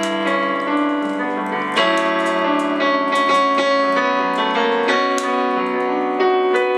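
Yamaha electronic keyboard played with both hands on a piano sound: a steady run of chords and melody notes, each left to ring on.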